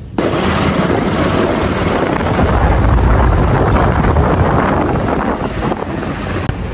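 Loud, steady rush of wind on the microphone over a deep vehicle rumble, cutting in abruptly at the start.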